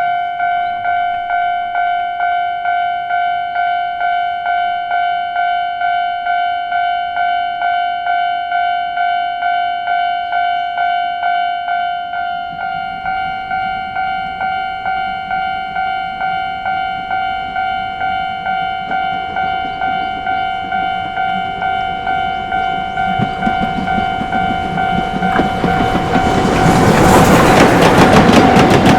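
Japanese railway level-crossing warning bell ringing in a rapid, even, repeating ding. About three-quarters of the way through a train approaches and passes over the crossing, wheels clattering on the rail joints, growing loud near the end under the bell.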